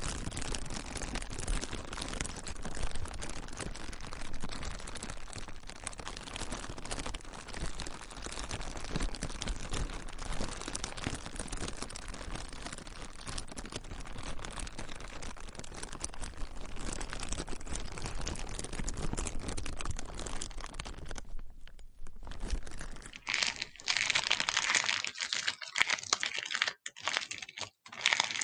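Plastic being crinkled and crumpled by hand: a dense, continuous crackling. About three-quarters of the way through it stops briefly, then resumes sharper and louder in short, broken bursts.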